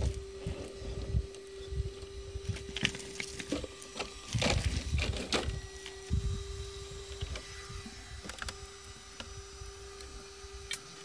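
Traxxas TRX-4 Sport RC rock crawler working over rocks: a steady high electric whine from its drivetrain, with scattered clicks and knocks of tyres and chassis on stone and swells of low rumble.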